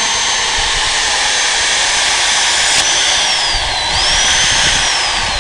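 Corded electric drill running while drilling into a board: a loud, steady high motor whine. Its pitch dips and recovers about three and a half seconds in, then falls near the end as the drill slows.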